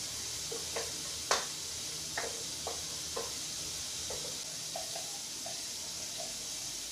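Wooden spoon stirring a flour-and-oil roux in a stainless steel pot, giving about a dozen light knocks and scrapes against the pot, the loudest about a second in, over a steady faint hiss.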